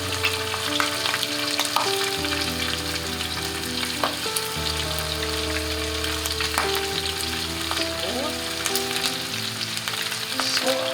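Breaded chicken drumsticks deep-frying in hot oil at about 175 °C: a steady sizzle with frequent small crackles and pops. A soft melody plays underneath.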